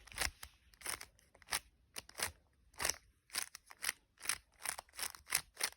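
Rubik's cube layers clicking as they are turned in quick succession, an uneven run of about three sharp clacks a second, while a last-layer move sequence for the yellow side is worked through.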